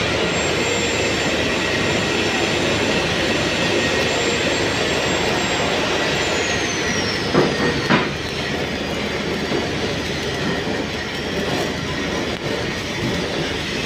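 Steady crackling hiss of a stick (SMAW) welding arc laying a fillet weld on steel pipe, with two sharp knocks about seven and eight seconds in.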